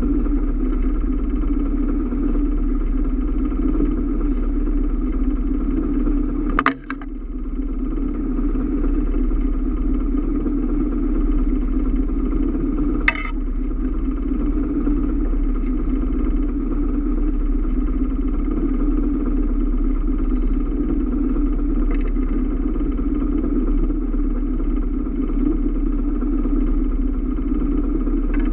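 Boat engine running steadily, a constant drone with a low hum under it, with two sharp knocks about seven and thirteen seconds in.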